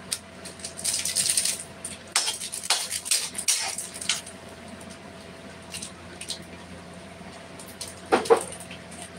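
Plastic spice sachet crinkling as Maggi masala is shaken into a steel pot, in a run of crackly rustles over the first few seconds; about eight seconds in, a metal spoon clatters against the pot.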